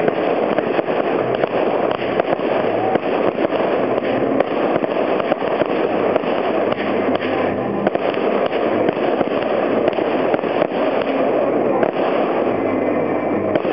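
Fireworks display: a continuous barrage of aerial shells bursting in quick succession, with many overlapping bangs and dense crackling.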